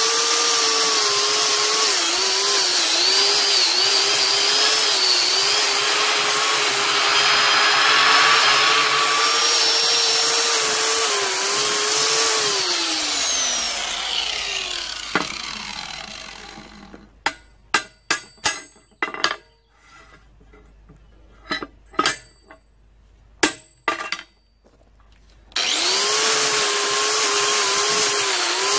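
A handheld electric grinder with a wire brush, running steadily as it scrubs steel welds. About 13 seconds in it is switched off and winds down to a stop, followed by a scatter of sharp clicks and knocks, then it starts up again near the end.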